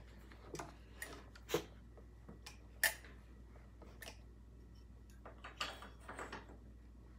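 Small handling noises from a Husqvarna 246 chainsaw being gripped and tilted on a wooden workbench: a few sharp clicks and knocks in the first three seconds, then a short run of knocks near the end.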